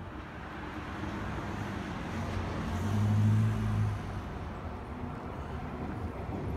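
A motor vehicle passing on the street, its engine hum rising to its loudest about three seconds in and then fading, over steady traffic noise.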